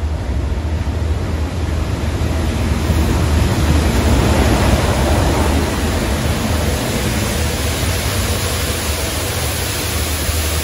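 Class 37 diesel locomotive passing slowly at the head of a Rail Head Treatment Train, its English Electric engine droning low under a loud, steady hiss of the train's high-pressure water jets blasting the railheads. The sound grows to its loudest about four to five seconds in as the locomotive draws level, then eases as the tank wagons follow.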